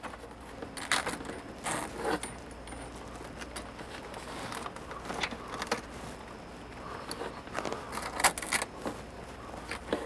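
Small metal parts clinking and scraping in irregular handling sounds: a metal washer and collar being slid over braided steel faucet supply hoses and up onto the faucet's threaded shank, with the hoses rattling.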